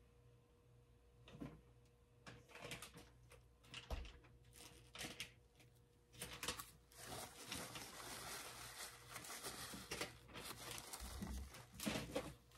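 Faint handling noises: scattered clicks and rustles, a soft thump about four seconds in, then denser rustling from about six seconds in.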